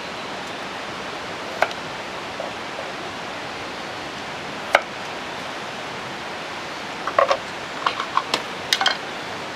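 Steady hiss of falling rain, with scattered sharp clicks and taps, several of them close together in the last few seconds.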